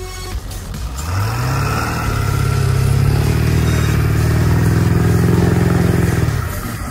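2000 Ford F-350 pickup's engine revving up about a second in and held at high revs under load in four-low as it climbs a snowy hill, tyres spinning and throwing snow. The revs fall away near the end as the truck loses momentum near the top.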